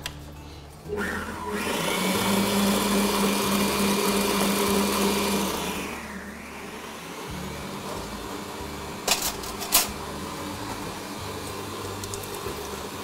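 Electric mixer with a wire whisk attachment running, beating hot boiled potato into a mash. It starts about a second in, runs louder until about six seconds, then continues more quietly. Two sharp knocks come near nine and ten seconds.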